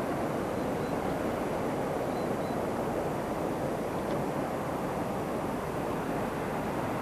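Steady rush of a shallow river's current flowing past.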